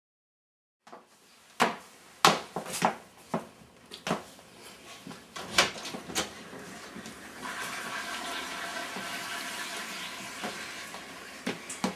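A series of sharp, irregular knocks and clicks, then a toilet flushing: a steady rush of water that starts about halfway through and runs for about four seconds.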